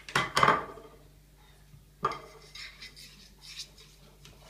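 A utensil knocking and scraping in a small frying pan: a quick cluster of knocks near the start, the loudest, another knock about two seconds in, then lighter tapping and scraping.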